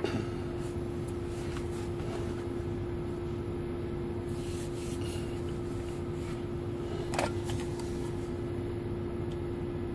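Steady low rumble inside a semi-truck cab with a constant hum, and a few faint clicks, the clearest about seven seconds in, while the CB radio is silent.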